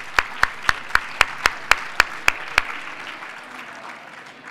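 Audience applauding, with loud, even claps about four a second from one pair of hands close to the microphone that stop about two and a half seconds in, after which the applause dies away.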